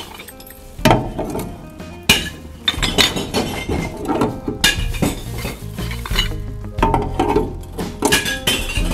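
Glass bottles dropped one after another through the chute of a clear-glass bottle bank, several loud clinks and clanks of glass striking glass inside the container, spaced a second or two apart. Background music plays underneath.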